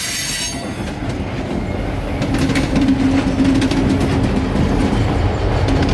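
Freight cars rolling slowly past on the next track, their steel wheels clicking over the rail joints, with a diesel locomotive's engine humming steadily as it comes alongside from about two seconds in.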